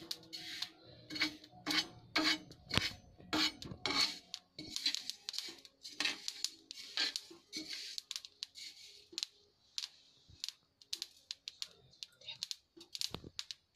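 Metal spatula scraping and stirring flaxseeds on a tava as they dry-roast, in a run of short irregular scrapes with the seeds rattling. Partway through, the roasted seeds are scraped off with a steel utensil onto a plate.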